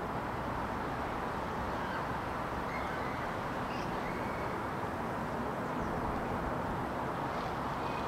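Steady outdoor background noise with no clear source, a constant hiss-and-rumble, with a few faint short bird chirps over it.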